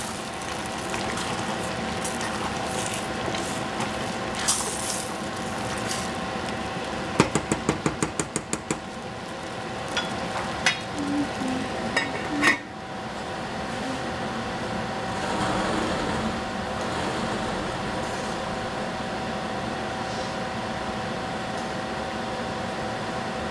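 Wooden spatula stirring and scraping tomatoes and egg in a sizzling stainless steel saucepan, with a quick run of about ten taps partway through. About halfway in, the stainless lid is set down on the pan with a clank, and after that only a steady hiss of the covered pan cooking remains.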